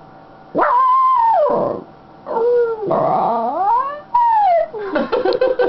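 A miniature schnauzer howling happily: several drawn-out howls that rise and fall in pitch, then a quick run of short yips near the end.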